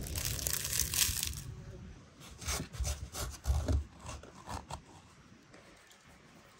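Scraping and rubbing: one steady scrape lasting about a second and a half, then a run of shorter scrapes and knocks that die away about five seconds in.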